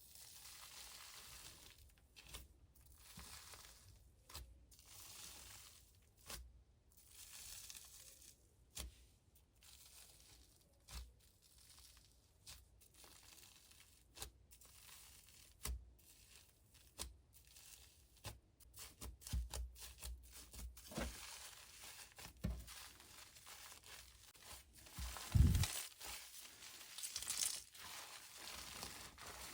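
Faint, irregular soft tearing and crinkling as cotton stuffing is pulled and squeezed by hand, with scattered small clicks that grow busier in the second half and one louder thump near the end.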